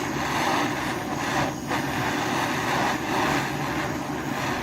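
Steady rushing roar of the heating tool playing on the brass boiler, with a short dip about one and a half seconds in.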